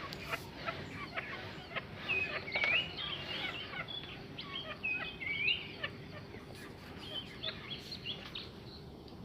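A prenjak, a small prinia, chattering in bursts of short, hooked, repeated calls.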